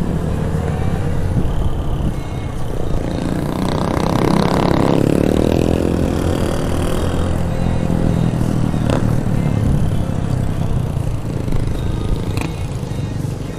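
Yamaha XJ6 inline-four engine running as the motorcycle cruises, heard with wind on the microphone and smaller motorcycles riding just ahead. The engine gets louder for a stretch about four to six seconds in, and there are two sharp clicks near the end.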